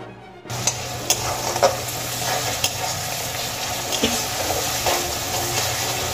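Chopped onions, green chillies and tomatoes sizzling in oil in a kadai while a metal spatula stirs them, scraping against the pan every second or so. The sizzle starts about half a second in.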